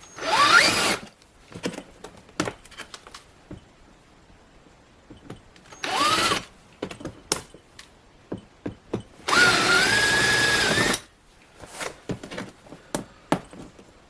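Power drill with a large bit running in three short bursts, its motor pitch climbing as it spins up each time, drilling out plastic mounting posts on a BMW door-pull trim piece. The last burst is the longest, about a second and a half, and light plastic clicks come between the bursts.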